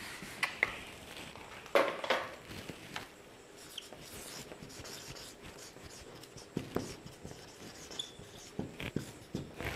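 Marker pen writing on a whiteboard: a scattering of short strokes and scrapes, with a louder rub or knock about two seconds in.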